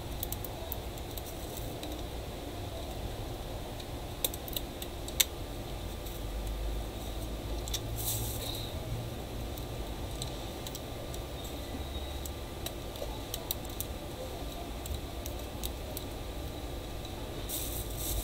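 Rubber bands being stretched and snapped around a phone to clamp its refitted screen: scattered small clicks and snaps, the sharpest a few seconds in, then a plastic bag rustling near the end, over a steady low background hum.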